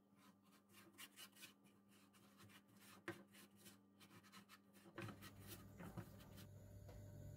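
Faint scraping of a silicone spatula stirring melting sugar in a nonstick frying pan, in repeated short strokes, with one sharper tick about three seconds in.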